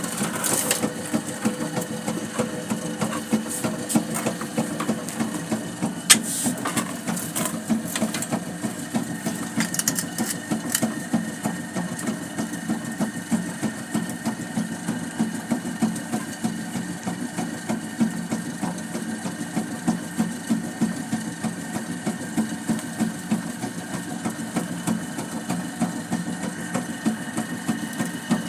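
Old water pump running steadily with a rhythmic mechanical pulsing.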